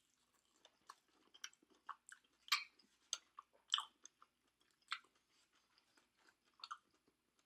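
A person chewing food close to the microphone: irregular wet mouth smacks and small crunches, the loudest about two and a half and four seconds in.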